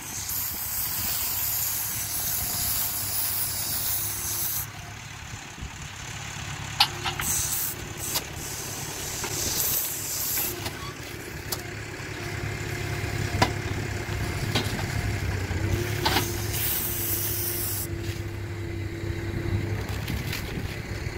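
A tractor engine runs steadily while a McHale trailed bale wrapper wraps a round bale in stretch film and tips it off. There is loud hissing for the first few seconds and again about two-thirds of the way through, with several sharp clicks and knocks in between.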